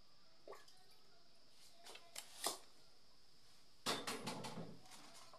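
A few faint light clicks of grasshoppers being turned by hand on a metal baking tray, then about four seconds in a sudden louder clatter and rustle of cookware being handled, which fades over about a second.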